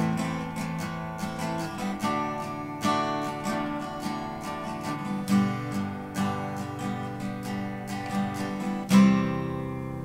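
Guitar playing the closing bars of a song: a run of strummed and picked chords, then a final, loudest strum about nine seconds in that is left to ring and die away.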